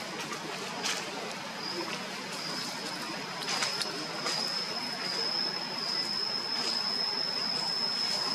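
Outdoor forest ambience: a constant hiss with a steady high-pitched tone that grows stronger about two seconds in and holds, and a few short clicks or rustles.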